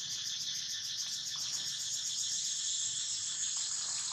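Steady high-pitched chorus of insects trilling in woodland, a constant rapidly pulsing drone.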